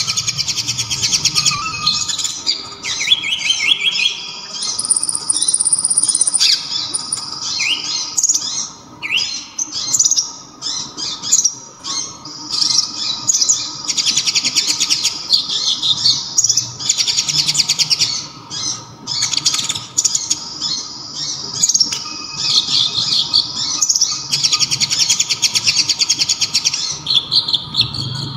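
Kolibri ninja (konin) sunbird singing a high-pitched song of rapid trills and chirps, phrase after phrase with only brief breaks. Its song carries learned kapas tembak phrases.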